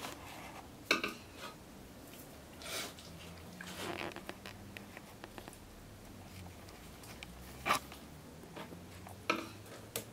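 Knife taps and scrapes on a wooden cutting board while trimming a raw moose heart, with the soft handling of wet meat. A handful of short, scattered clicks over a faint low hum.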